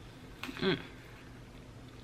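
A person bites into a Ritz cracker topped with Brie, a short crunch about half a second in, followed by a brief hummed "mm" with falling pitch, then quiet chewing.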